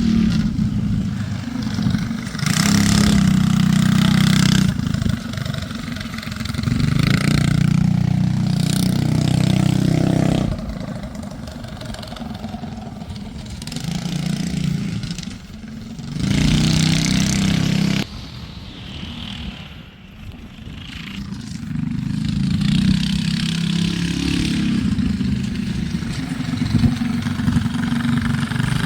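Small gas engine of a homemade ride-on kart with a torque converter and chain drive, running loud and revving up and easing off repeatedly as it is ridden around, its sound swelling and fading as it comes and goes.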